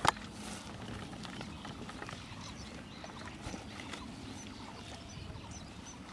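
One sharp knock right at the start, then faint rustling and light scraping as a sack is handled while a live swamp eel is pushed into it.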